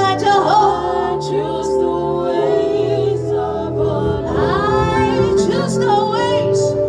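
Worship song: several voices singing together over sustained chords.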